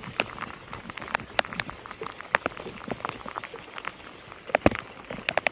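Heavy rain falling: a steady hiss with irregular sharp drop hits close to the microphone.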